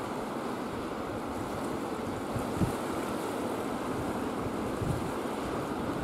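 Wind rushing across the microphone over a steady wash of sea water, with a brief low gust-bump about two and a half seconds in.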